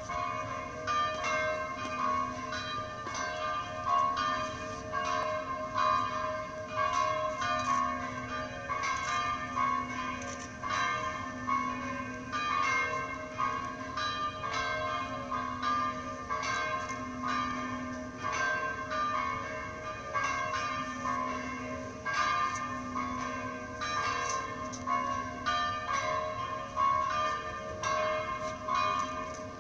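Several church bells ringing together in a continuous peal of overlapping strikes, with the deep hum of a large bell swelling and fading at a slow, even pace.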